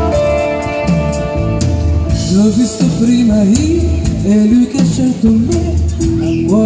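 A live pop-rock band plays: drum kit with cymbal crashes, electric guitars and keyboard. A woman's lead vocal comes in about two seconds in and sings over the band.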